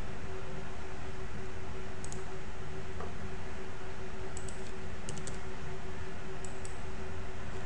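A handful of light computer keyboard and mouse clicks, scattered a few at a time, over a steady hum and hiss.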